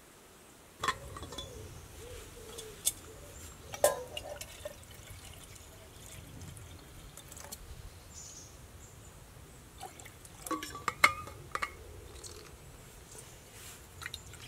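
Water poured from a stainless steel flask into a small camping pot, with sharp metallic clinks and knocks as the flask and pots are handled.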